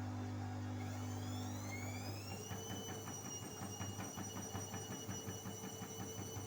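Bosch Series 4 washing machine speeding up into its spin: the motor's whine rises in pitch from about a second in and then holds steady. Under it run a fast, regular pulsing from the turning drum and a steady low hum.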